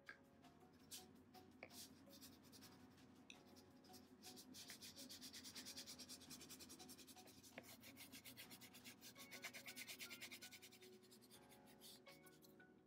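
Faint scratchy rubbing of a Crayola wax crayon scribbling back and forth on paper in quick, even strokes, shading in a line. The strokes get louder and denser through the middle, then ease off near the end.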